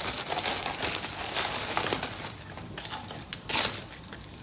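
Brown packing paper rustling and crinkling as stoneware mugs are unwrapped, with a few short knocks, the loudest about three and a half seconds in.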